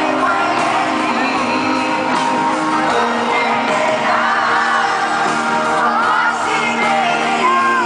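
Live pop ballad played by a band with acoustic guitar and drums, a male lead singer over it, and fans close by singing along and shouting.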